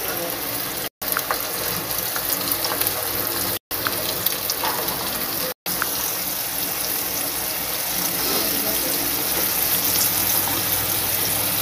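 Floured red tilapia fillets sizzling in hot oil in a pan: a steady hiss with scattered small crackles and pops. The sound cuts out for an instant three times.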